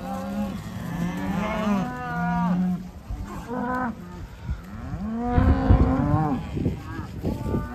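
Cattle mooing, several calls one after another, some long and drawn out.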